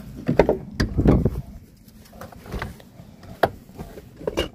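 Scattered knocks, clicks and rustling of someone climbing into a pickup truck, with a heavier knock about a second in and a sharp click about three and a half seconds in.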